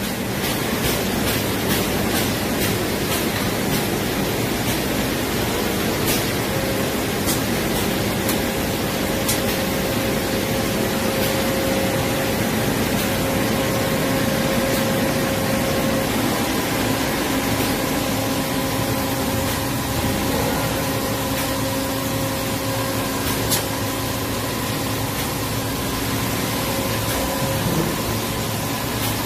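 Steady industrial machine noise from a 1,300-ton injection molding machine and its takeout robot at work: an even hiss under a low hum and a few faint steady tones, with an occasional sharp click.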